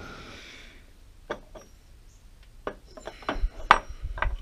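Metal lathe apron parts clinking and knocking as they are handled, after a soft rustle at the start. A few scattered clicks come first, then a quicker run of knocks through the last second and a half, the loudest about three and a half seconds in.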